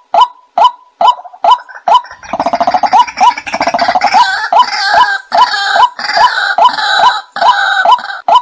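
White-breasted waterhen calling: a monotonous run of sharp "kwak" notes, a little more than two a second, and from about two seconds in a loud gurgling, croaking chatter runs under the notes until just before the end.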